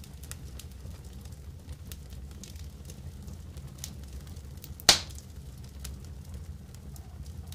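Wood fire crackling, with scattered small pops over a steady low rumble and one loud sharp snap about five seconds in.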